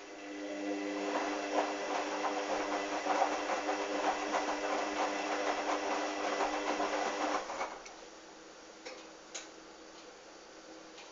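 Hoover washing machine motor turning the drum during the wash, a steady hum with the wet towels and sudsy water sloshing inside, for about seven and a half seconds before it stops suddenly. A couple of faint clicks follow.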